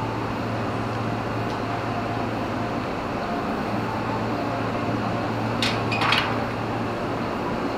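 Steady running noise inside a moving passenger train carriage, with a constant low hum from the air conditioning. A short burst of metallic noise a little after five and a half seconds in.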